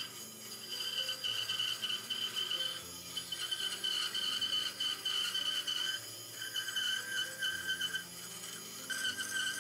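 Background instrumental music: held high tones over a slowly stepping bass line.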